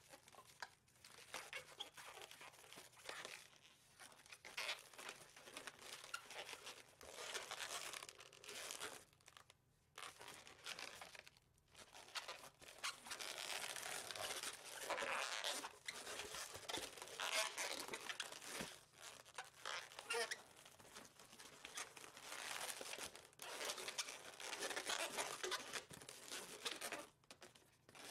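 Latex 260 modelling balloon rubbing and squeaking against itself and the hands as it is twisted and bent into a pony, in irregular spurts with a few short pauses.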